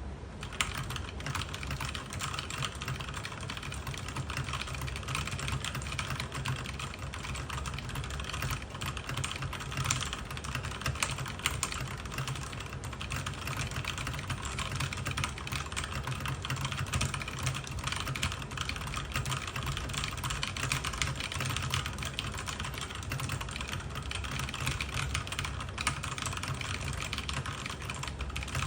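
Very fast typing on a mechanical keyboard with tactile brown switches (CK721): a dense, unbroken stream of key clicks at around 183 words a minute.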